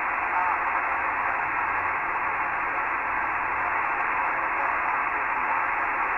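Steady hiss of a VHF amateur radio transceiver receiving upper sideband on the 144 MHz (2-metre) band: even static with no clear signal coming through.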